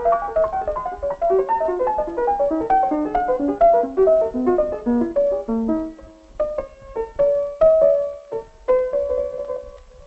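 Piano music: quick runs of notes stepping down in pitch over the first six seconds, then slower, spaced notes with some held.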